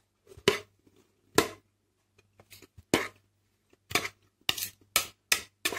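A series of about eight sharp knocks and clinks of a kitchen utensil against a bowl, irregularly spaced and coming closer together in the second half.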